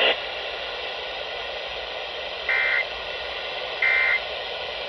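Steady AM radio static hiss, broken about halfway through and again a little over a second later by short warbling data bursts. These are the Emergency Alert System end-of-message tones that close a relayed weather warning.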